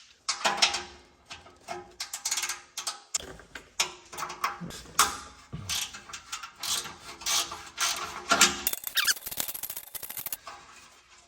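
Socket ratchet wrench clicking in repeated short strokes, backing off a 10 mm bolt on a car's exhaust joint.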